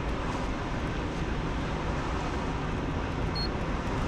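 Steady road and engine noise heard inside a car's cabin as it drives along an asphalt road at about 53 km/h. A brief faint high beep sounds about three and a half seconds in.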